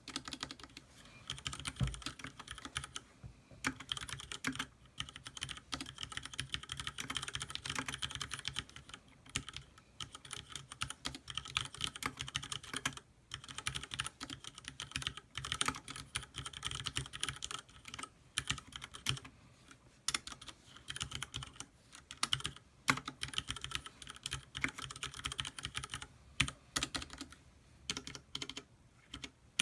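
Typing on a Leopold FC660M mechanical keyboard with Cherry MX Red linear switches and thick PBT keycaps: a fast, irregular stream of key clacks with brief pauses between bursts.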